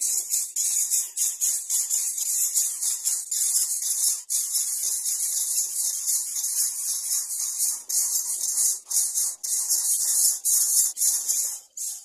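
Greater coucal nestlings begging at the nest: a continuous high-pitched hiss made of rapid pulses, several a second.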